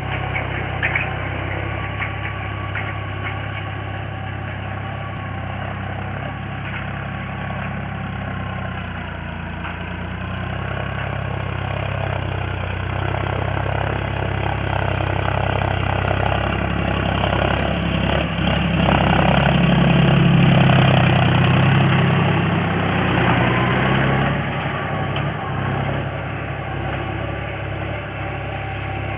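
John Deere tractor's diesel engine running steadily as it pulls a tillage implement through the soil. It grows louder for a few seconds about two-thirds of the way through.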